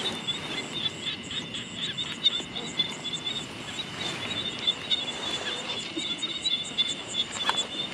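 Night chorus of insects in a wet rice field: a steady high-pitched trilling with a fast, regular ticking above it.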